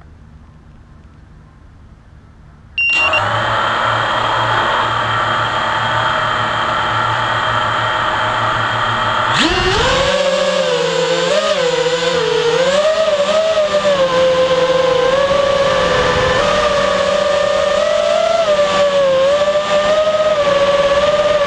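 Brushless motors of an FPV racing quadcopter, heard close up from its onboard camera. About three seconds in they spin up to a steady idle whine. A few seconds later the throttle opens, the pitch jumps higher, and it keeps wavering up and down with the throttle as the quad flies.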